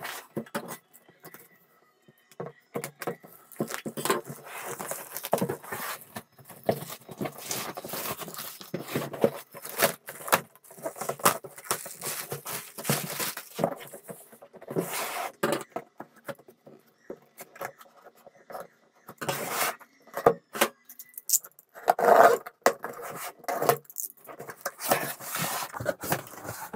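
A cardboard fan box being handled and opened by hand: irregular scraping, rubbing and rustling of cardboard and packing, with short knocks, after a brief lull near the start.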